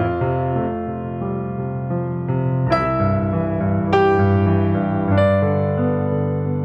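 Background music: piano or electric piano playing slow sustained chords, with new chords struck about every one to one and a half seconds from a little under halfway in.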